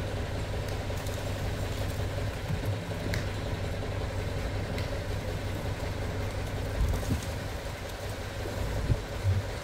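Light dump truck's engine running steadily with the tipper bed raised after dumping a load of sand. A few low thumps come in the last few seconds.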